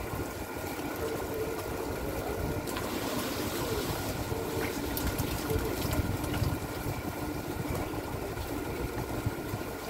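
Fishing boat's engine running steadily, a low rumble with a constant hum, mixed with water noise at the hull.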